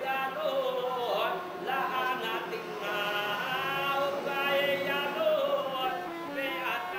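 Jewish prayer chant: a voice sings a melismatic line that slides and wavers between held notes.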